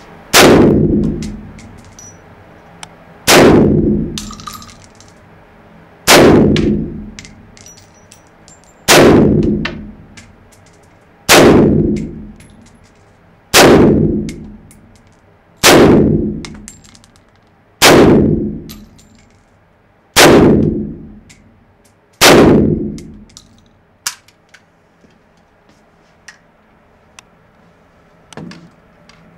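AKS-74U carbine (5.45×39 mm) fired in single shots, ten of them about two to two and a half seconds apart, each ringing out in an echoing indoor range. A couple of sharp metallic clicks follow near the end.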